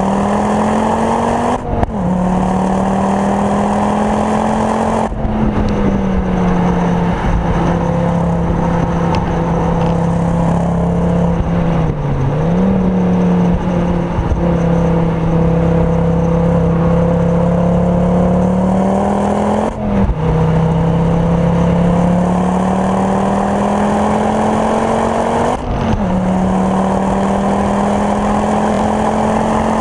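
Ford Focus RS Mk2's turbocharged 2.5-litre five-cylinder engine, with a Mountune 420 bhp conversion and full Milltek exhaust, running hard at high revs, heard from inside the cabin. The note climbs and then breaks off with a sudden drop in pitch four times, at gear changes, and dips briefly near the middle.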